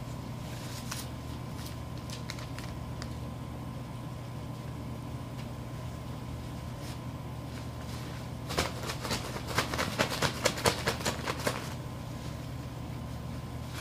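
A hand rummages through name slips inside a drawstring bag: a few scattered rustles, then about two-thirds in a three-second run of rapid crinkling and rustling, over a steady low hum.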